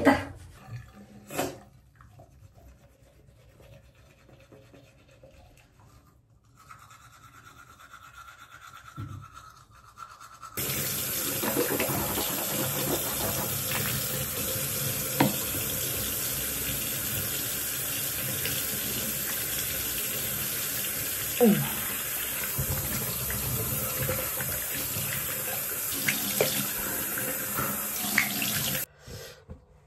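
Bathroom tap running steadily into a sink, starting abruptly about a third of the way in and stopping shortly before the end. Before it, a few faint knocks.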